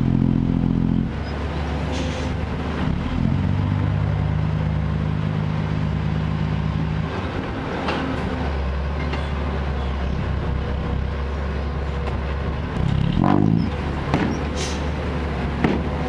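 Isuzu Deca six-wheel dump truck's diesel engine running under load as the raised tipper bed dumps soil, its pitch shifting in steps, with a short rising rev late on and a couple of sharp knocks near the end.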